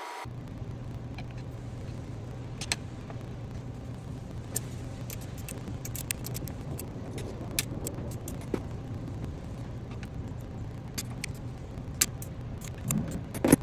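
Scattered metal clicks and clinks of a 19 mm wrench working a fitting on an air compressor's steel mounting bracket, with a few louder knocks near the end, over a steady low hum.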